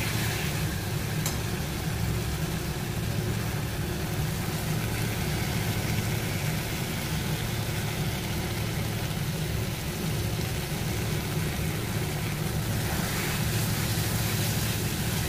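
Spice paste and potatoes frying in a karahi over a turned-up gas flame while being stirred, a steady low hum under a faint sizzle.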